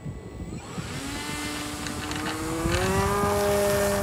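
Electric brushless motor and 9x4 propeller of an RC glider spooling up to full throttle for takeoff: a whine that rises steadily in pitch from about a second in, then holds steady near the end.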